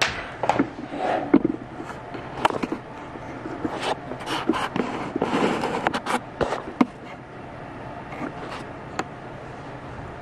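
Handling noise on a desk: a run of clicks, knocks and scrapes as a USB cable is handled and plugged into a power strip's USB port, settling down after about seven seconds.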